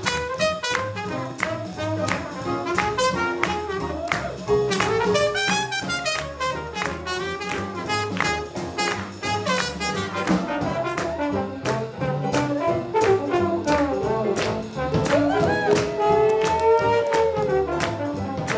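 Live swing jazz band playing an up-tempo number: saxophones and trumpet carry the melody over piano and drums keeping a steady, even beat. Near the end a horn slides down in pitch.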